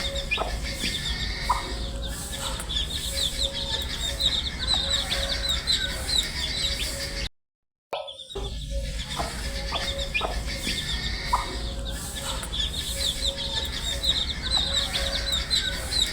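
A brood of baby chicks peeping: a dense, continuous stream of short, high, falling chirps. About seven seconds in, the sound cuts out for half a second, then the same passage starts over as a loop.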